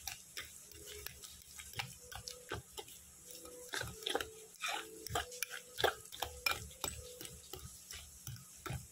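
A metal fork mashing overripe bananas in a glass bowl, with irregular clinks and scrapes of the fork against the glass, a few a second, busiest about halfway through.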